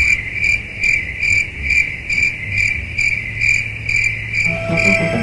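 Crickets chirping in an even pulse, a little over two chirps a second. Music begins faintly near the end.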